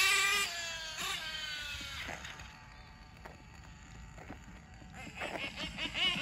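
High-pitched whine of an RC truggy's .28 nitro engine at high revs. It fades as the truggy drives off, with the pitch dropping on short throttle lifts. About five seconds in it grows louder again, with quick rising and falling revs.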